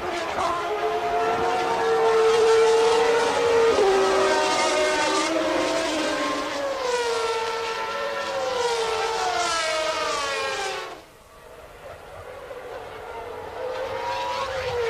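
Formula One race car engines at high revs, their pitch rising and falling as the cars accelerate and shift gears. Several engines overlap. The sound drops away sharply about eleven seconds in, then builds again near the end.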